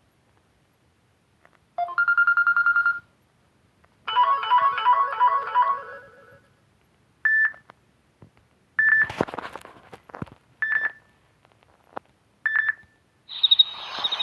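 Samsung Galaxy Fame Lite ringtones played one after another on the phone. First a fast-pulsing electronic beep for about a second, then a short repeating melody, then four brief high chirps about two seconds apart. A new tone starts near the end.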